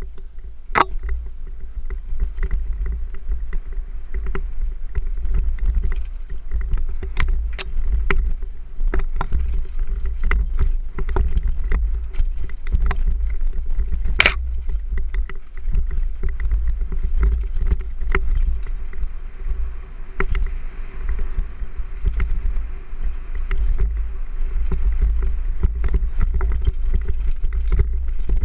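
Mountain bike rolling fast down a rocky dirt trail, heard from a helmet mount: a heavy low rumble of wind buffeting and vibration on the microphone, with a near-constant clatter of the bike rattling over rocks and roots. One sharp, loud knock comes about halfway through.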